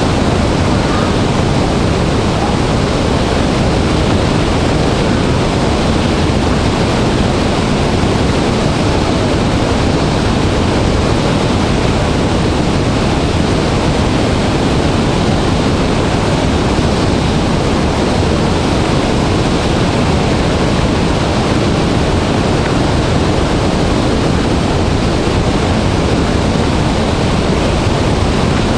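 Large waterfall in heavy flow: a loud, steady, unbroken rush of falling water.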